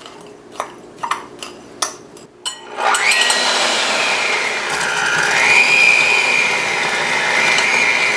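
A spoon clicks and scrapes against glass a few times, then a Cuisinart electric hand mixer starts about three seconds in and runs steadily, creaming butter with brown and white sugar. Its motor whine dips in pitch briefly and comes back up as the beaters work the mix.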